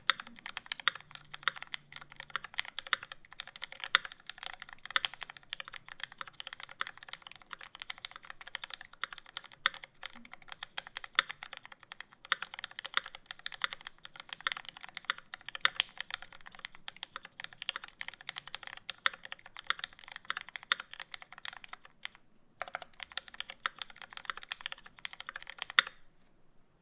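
Mechanical keyboard being typed on fast and continuously: a KN2.10² with lubed Cherry Retooled Black linear switches on 60 g springs, a 4 mm aluminium plate and GMK keycaps. There is a brief pause about 22 seconds in, and the typing stops about a second before the end.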